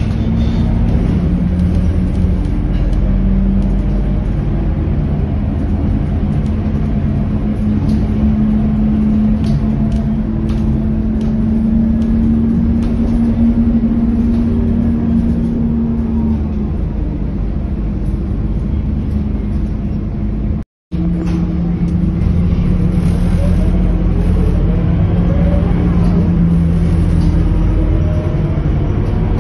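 Scania K230UB city bus's diesel engine running as the bus drives, heard from inside the passenger cabin with road noise. The engine's steady hum slowly rises and falls in pitch with speed. The sound cuts out for a moment about two-thirds of the way through.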